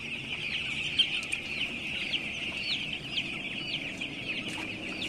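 A large flock of young broiler chicks peeping, many short high rising peeps overlapping into a continuous chatter.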